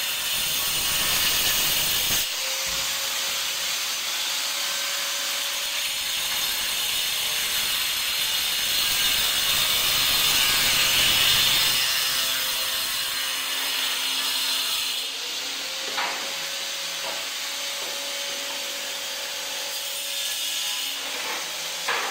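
Hand-held angle grinder cutting a ceramic floor tile: a steady motor whine under the gritty hiss of the disc through the tile, with a couple of light knocks in the later part.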